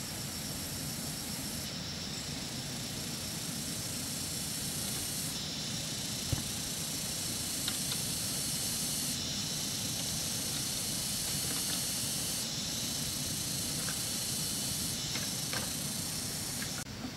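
A steady high hiss that drops away briefly every few seconds, with a few faint clacks of bamboo sticks being handled.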